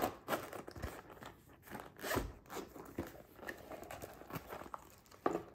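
Zipper of a zippered carrying case being pulled open around the case's edge in a series of short, irregular rasps, with a few clicks and rustles as the case is handled and opened.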